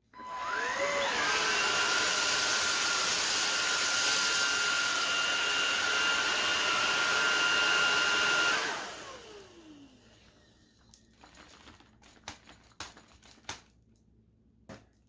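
Xiaomi Shunzao Z11 cordless stick vacuum switched on. Its motor spins up with a rising whine and runs steadily for about eight seconds with a rushing airflow and a high whine. It is then switched off and winds down with a falling pitch, followed by a few light clicks and knocks.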